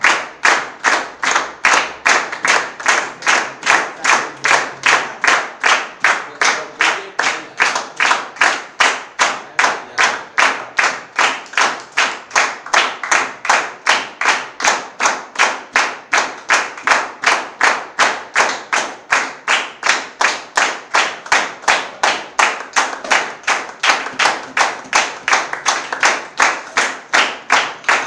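Small audience clapping in unison to a steady beat, about two and a half claps a second.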